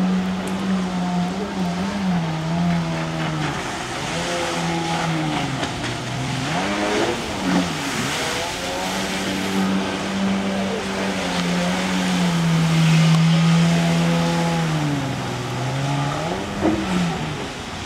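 Stand-up jet ski engine revving as the rider works the throttle through spins, over the rush of water spray. The engine pitch holds steady, then dips and swoops back up about six seconds in and again near the end.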